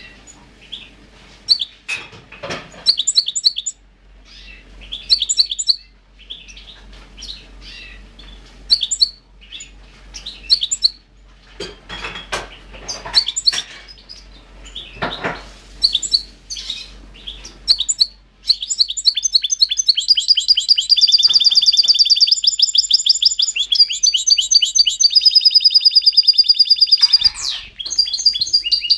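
Pet goldfinch giving scattered short chirps and twitters, then breaking into a loud, continuous song of rapid repeated high notes for about eight seconds, starting around two-thirds of the way in, before going back to short calls.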